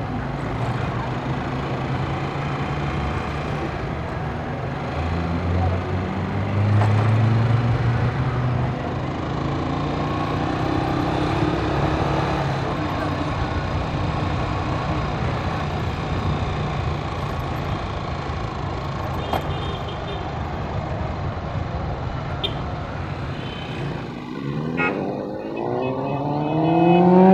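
Motor traffic on a city street: car and motorcycle engines passing, their pitch rising as they speed up, with the loudest one accelerating near the end.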